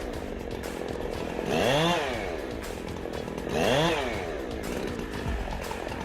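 Chainsaw engine running, revved up and back down twice, about two seconds apart.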